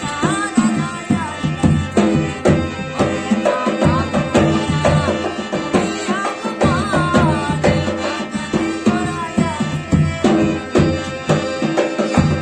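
Rajasthani folk devotional music: a steady drum rhythm under a wavering melody line that rises and falls.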